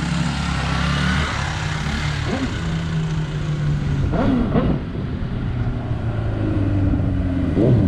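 Suzuki GSX-R1000 K3 inline-four with a Two Brothers aftermarket exhaust riding past, its engine note rising and falling as the throttle is worked, mixed with car traffic.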